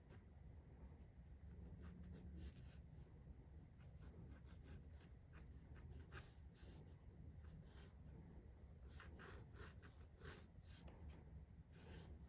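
Faint scratching of a coloured pencil on drawing paper: short, light sketching strokes in irregular runs, over a low steady hum.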